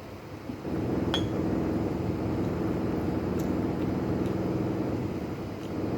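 A steady hum comes on just before a second in. Shortly after it comes a single ringing clink, like a utensil against a plate or glass, then a few faint ticks.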